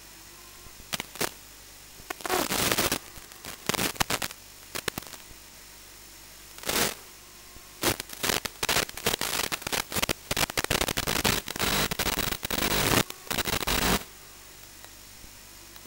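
Static crackle and hiss from the analog FPV video link of a Walkera F210 racing drone: a low steady hiss, then irregular bursts of loud static from about two seconds in, coming thick and fast in the second half before cutting off abruptly near the end. This is radio interference on the drone's video feed.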